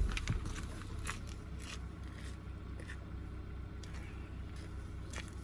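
Low steady hum of an idling car, with a few faint clicks and rustles.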